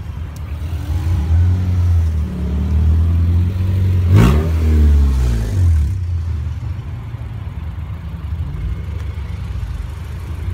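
Cars driving out in a line with their engines running. About four seconds in, one car passes close by and its engine note drops away as it goes.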